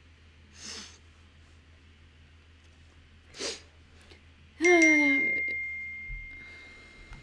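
Computer message-alert chime: one sharp ding about two-thirds of the way in that rings on and fades slowly, preceded by two short breathy puffs.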